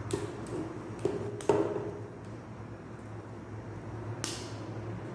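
Sharp clicks and knocks of a DK3888 mobile tripod being handled and fitted together: about five in all, the loudest about a second and a half in, with a steady low hum underneath.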